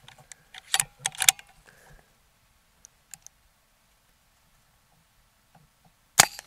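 Brocock Ranger XR .22 PCP air rifle with a 0DB moderator: two sharp cocking clicks about a second in, a few faint ticks, then a single moderated shot near the end.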